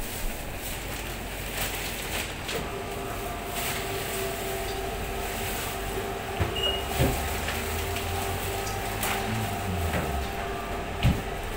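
Butcher's knife cutting and scraping pork away from the bone on a cutting board, with a few knocks against the board, the sharpest near the end, over a steady mechanical hum.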